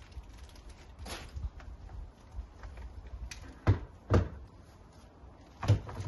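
Three sharp knocks, two about half a second apart and a third a second and a half later, over light rustling: trimmer parts being handled and set down during unboxing.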